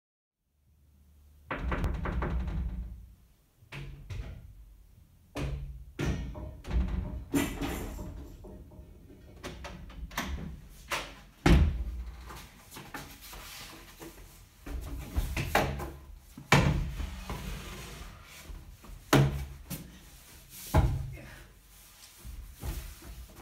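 Irregular knocks and thuds, a dozen or more, the loudest about halfway through, with low rumbling handling noise between them. Toward the end a long cardboard tube is carried in and bumped about.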